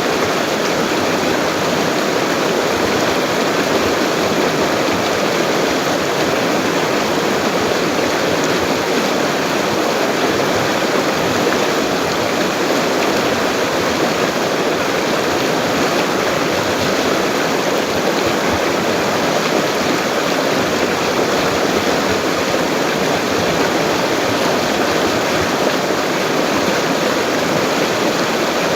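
A swollen, fast-flowing river running steadily: an even, unbroken wash of water.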